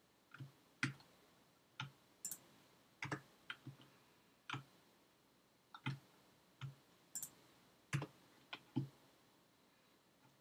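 Faint, irregular clicking of a computer mouse and keyboard: mouse buttons clicking and the delete key pressed, about a dozen clicks, some in quick pairs.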